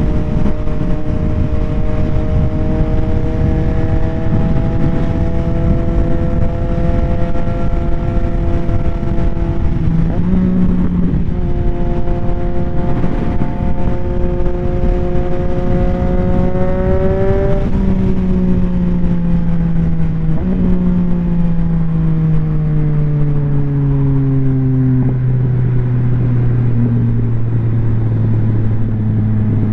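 2022 Yamaha XSR900's three-cylinder engine through a Kelpi Custom Moto Shorty exhaust, pulling up through the revs with a gear change about ten seconds in, climbing again, then falling away as the bike slows, with a downshift partway down and a low steady note near the end. Wind rushes over the microphone throughout.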